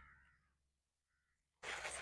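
Mostly near silence with a faint, brief wavering call, then a dry rustling noise that starts near the end.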